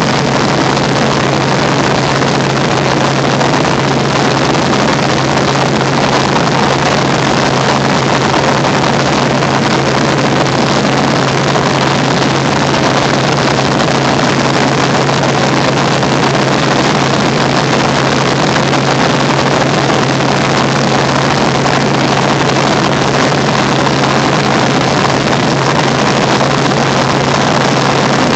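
Helicopter in low, level flight, heard from inside the cabin: a loud, steady rush of engine and rotor noise over a constant low hum.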